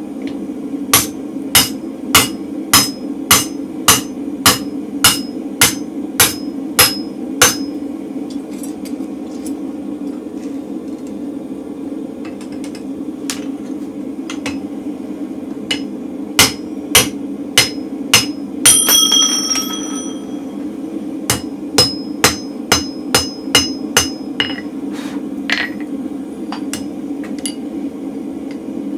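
Hand hammer striking a steel drift, driving it through a hole in a red-hot mild steel bolster plate on the anvil. A run of about a dozen blows, roughly two a second, is followed by a pause, then further groups of blows with one ringing steel clang in the middle, over a steady low hum.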